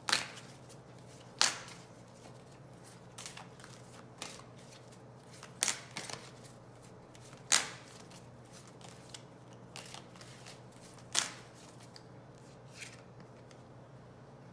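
A tarot deck being shuffled by hand: soft card rustling broken by about five sharp card snaps spread through, the loudest about seven and a half seconds in.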